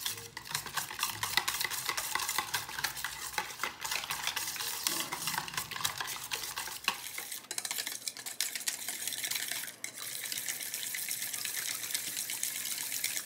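Wire whisk beating a wet yogurt-and-tomato spice marinade in a stainless steel bowl: rapid, continuous clicking and scraping of the wires against the metal, with a brief pause about two-thirds of the way through.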